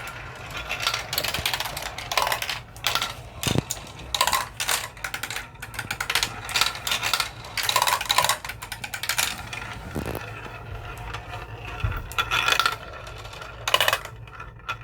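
Marbles rolling and clattering down a marble run track: a steady rolling rumble with irregular clicks and knocks throughout.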